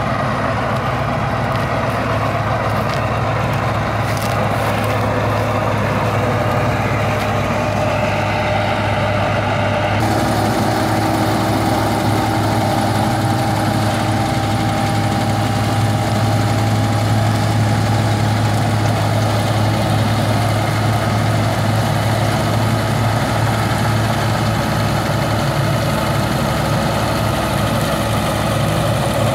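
Massey Ferguson 385 tractor's diesel engine running steadily under load while powering a wheat-straw chopping machine, a constant heavy drone with a steady whine over it.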